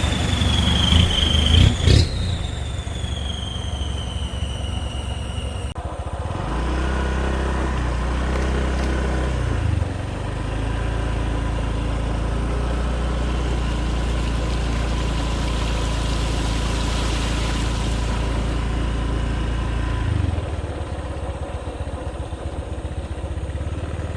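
A motor vehicle engine running steadily at low speed. Its note drops about ten seconds in and falls away near the end. Before it, a few seconds of vehicle noise carry a high whine falling slowly in pitch.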